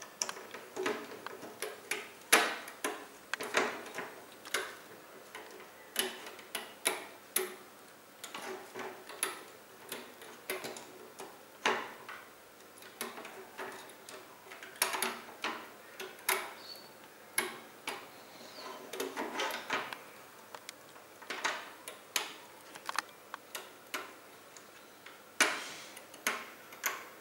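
Irregular sharp plastic clicks and taps, about one or two a second, from a plastic hook tool and stretched rubber bands knocking against the pegs of a plastic Rainbow Loom as the bands are hooked and pulled off.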